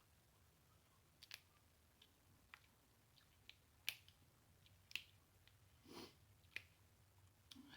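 Close-miked wet lip smacks and mouth clicks from someone eating: about ten sharp, separate smacks at uneven intervals, with one longer wet sound about six seconds in.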